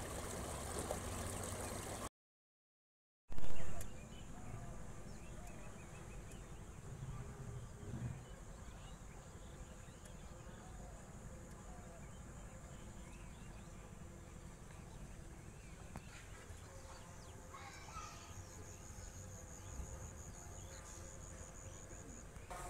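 Water running through a narrow earthen irrigation ditch, then after a short gap a brief loud burst of sound, followed by a faint outdoor background with scattered small sounds and a fast, high trill near the end.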